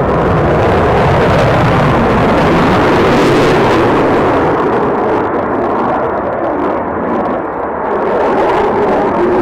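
Loud jet noise from a Eurofighter Typhoon's two Eurojet EJ200 turbofan engines as the fighter manoeuvres overhead, easing slightly about seven seconds in and swelling again near the end.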